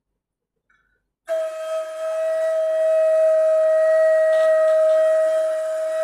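Ney, the end-blown reed flute, sounding one long held note that starts about a second in, steady in pitch with breath noise around it.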